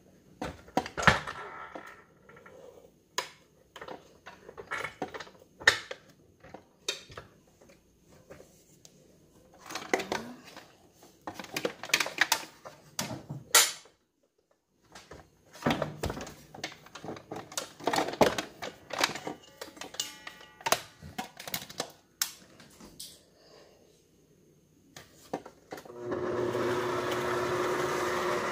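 Scattered knocks and clatter of utensils and containers handled at a kitchen counter. Then, about 26 s in, an electric stand mixer switches on and runs steadily with an even hum.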